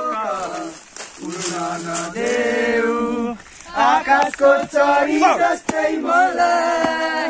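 Several men's voices singing and chanting together. The first few seconds hold long notes, and after about four seconds the voices turn livelier and wavering.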